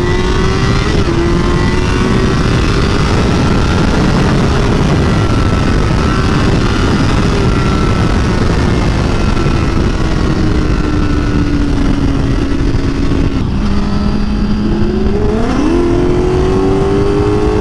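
Sportbike engine at highway speed under heavy wind rush. The engine note sags slowly for most of the stretch, drops briefly about 13 seconds in, then climbs steeply near the end as the bike accelerates.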